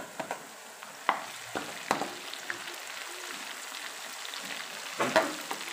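Chopped garlic and chilies frying in hot oil in a wok with a steady sizzle, as metal tongs stir them and clack against the pan a few times, loudest near the end.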